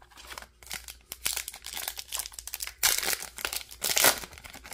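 Foil trading-card pack wrapper crinkling and tearing as it is pulled from the box and ripped open, with the loudest bursts of crackling about three and four seconds in.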